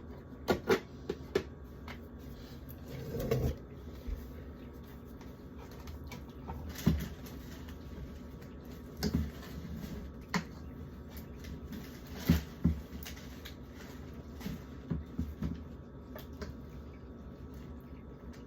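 Irregular knocks, taps and short scrapes of kitchen handling: a spatula scooping old pasta out of a food container. The hardest knocks come about 7, 9, 10 and 12 seconds in.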